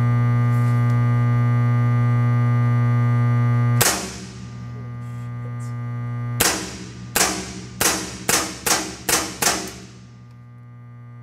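RAP4 468 PTR paintball marker fired into a bullet trap: one shot about four seconds in, then after a pause seven shots in quick succession, about two a second, each a sharp crack with a short ring. A loud steady electrical hum runs under the first shot and fades afterward.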